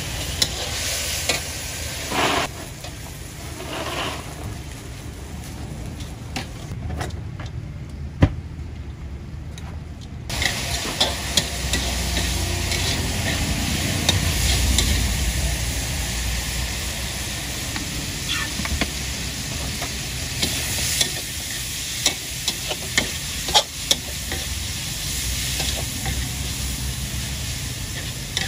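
Noodles, beef and vegetables sizzling in a stainless steel wok while a metal ladle stirs and scrapes them, with sharp clanks of ladle on wok, several close together near the end. A low steady rumble runs underneath, and the sizzle fades for a few seconds about a third of the way in.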